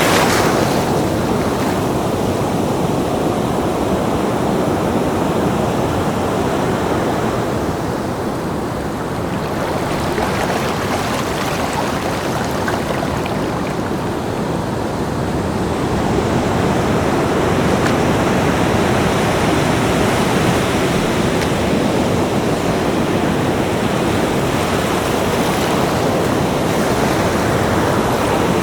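Ocean surf breaking and washing onto a beach: a continuous rushing wash of waves that eases off a little twice and swells back up.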